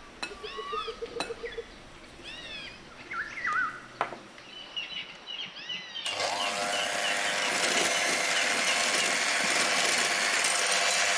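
A few short high chirps and light clicks, then about six seconds in an electric hand mixer starts with a brief rising whine and runs steadily, its beaters whisking powdered sugar into beaten eggs.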